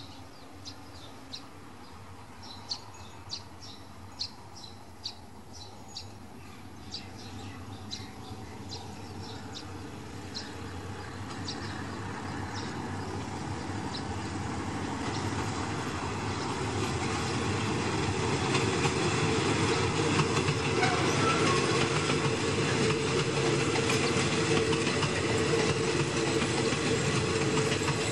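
A passenger train rolling past on the near track: its rumble and wheel noise grow steadily louder from about ten seconds in, then run loud and steady with a steady hum. Before that, a quieter stretch holds a series of short, sharp high ticks.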